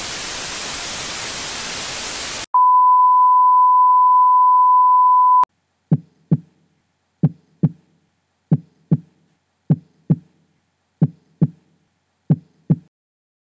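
Television static hissing for about two and a half seconds, cut off by a steady high test-tone beep lasting about three seconds. Then a heartbeat sound effect: six double thumps, about one and a third seconds apart.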